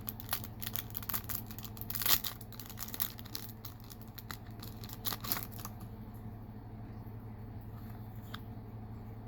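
Packaging crinkling and tearing as a small collectible pin is unwrapped. Dense crackles for about five seconds, the loudest about two seconds in, then only a few faint ticks over a steady low hum.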